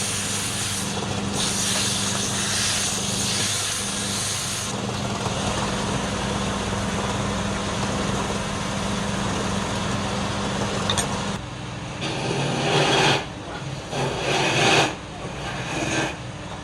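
A machine running with a steady hum under a broad hiss, which stops about eleven seconds in, followed by several loud, irregular bursts of noise.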